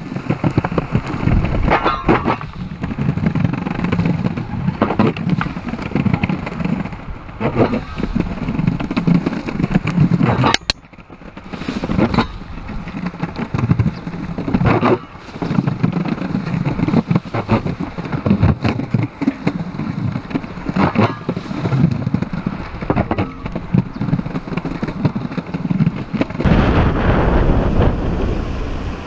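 Longboard wheels rolling over paving slabs, heard from a camera mounted on the board: a continuous rumble with sharp knocks now and then. Near the end the sound turns to a louder, steadier rush.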